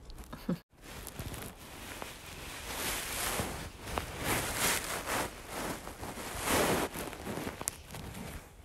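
Close rustling and rubbing right against the microphone, cat fur and clothing brushing the phone. It swells and fades unevenly, after a brief dropout about a second in.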